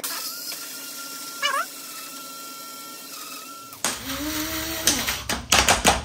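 Electric blade coffee grinder grinding coffee beans with a steady whine, with a brief wavering squeak about a second and a half in. The grinder stops just before four seconds, followed by several clicks and knocks.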